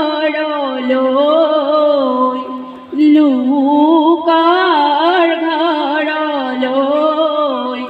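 A woman singing a biya naam, an Assamese wedding song, solo with no instruments, into a microphone. She holds long phrases whose pitch wavers and slides, and breaks for breath about three seconds in.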